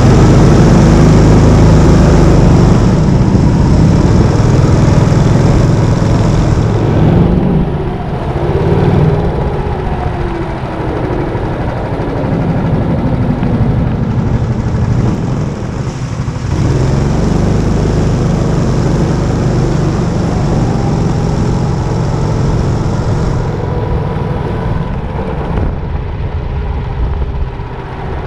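Go-kart engine running under throttle, heard from on board the kart, its pitch rising and falling repeatedly as the kart speeds up and slows.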